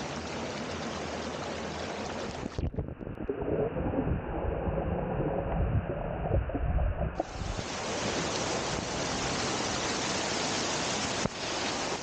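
Water rushing and splashing over a small check dam waterfall, close up. About two and a half seconds in, the sound turns muffled and bubbly, heard from under the water, for about four and a half seconds, then the open rushing returns.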